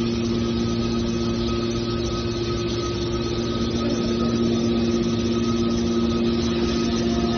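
Mini aluminium can baler running: a steady machine hum with a constant whine over an even mechanical noise.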